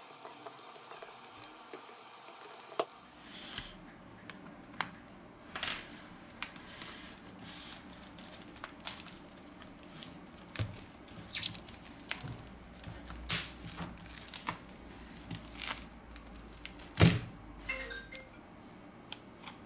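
Scattered sharp clicks and light taps of plastic opening picks and tablet parts being handled as the cracked touchscreen glass of a Samsung Galaxy Tab A 2016 is pried loose and lifted off, one louder click near the end, over a faint steady low hum.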